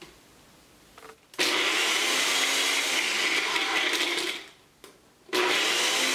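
Ninja blender grinding dry ladyfingers into crumbs in two runs. The first starts about a second and a half in, runs steadily for about three seconds and winds down. The second starts again near the end.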